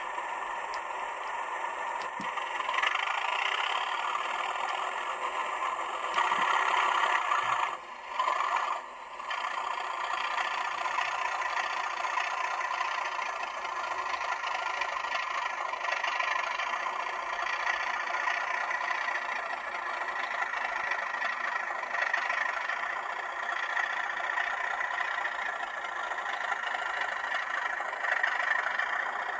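Hornby TTS class 37 sound decoder playing the English Electric diesel engine sound of a class 37 through the small speaker of an N gauge Graham Farish model, thin and without bass, running steadily as the locomotive moves. The sound swells a little around six seconds in and drops out briefly twice, about eight and nine seconds in.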